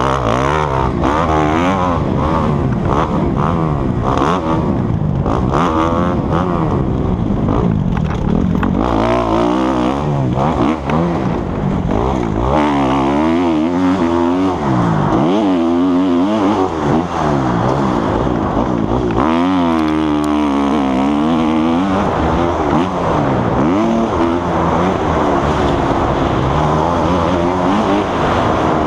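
Dirt bike engine revving hard and falling back again and again, its pitch climbing and dropping with each burst of throttle and gear change as the bike is ridden around a motocross track.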